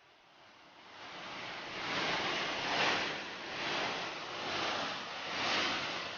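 Flash-flood torrent rushing over rocks in a wadi after heavy rain, a steady rush of water that swells from faint to loud about a second in, then surges and eases roughly once a second.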